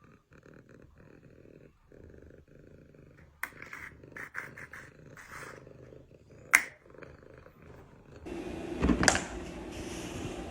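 Domestic cat purring close up, a fast low steady rumble, broken by two sharp clicks. About eight seconds in, the purring gives way to a steady hiss and a single thump.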